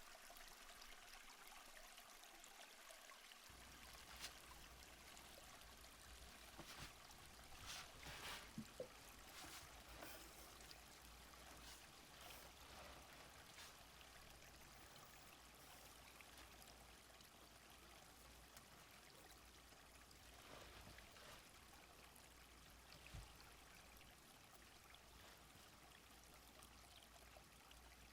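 Faint, steady sound of a small stream flowing, an even rush of water with a few brief brighter splashes.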